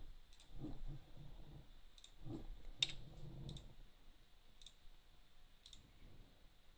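Computer mouse button clicks: about half a dozen short, sharp single clicks at uneven intervals, the loudest about three seconds in.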